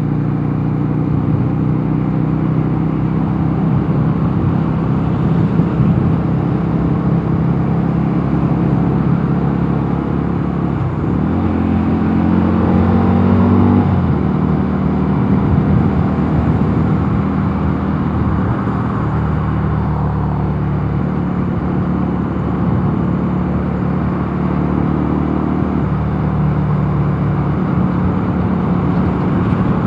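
Mondial Nevada 250 motorcycle engine running under way, with road and wind noise; the engine note climbs from about eleven to fourteen seconds in, then settles, and shifts again near the end.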